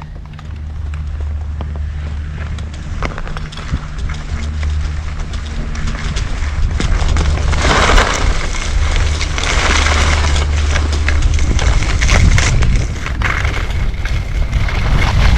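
Wind buffeting the microphone during a ski run, with skis hissing over snow; the hiss grows louder from about six seconds in as the run picks up speed.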